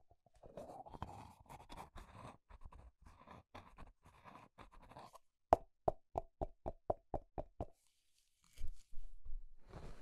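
Rubber toilet plungers handled close to a lavalier microphone: a few seconds of rustling and scraping, then a quick run of about ten hollow taps, four or five a second. Near the end come more handling sounds as the plungers are set down on a wool blanket.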